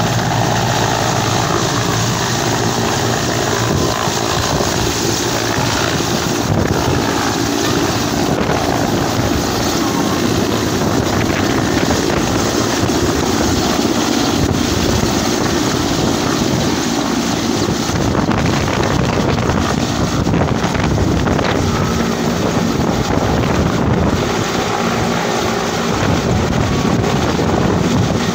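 Mi-8-family helicopter's main rotor and twin turbine engines running loud and steady as it lifts off and climbs away, with rotor wash buffeting the microphone.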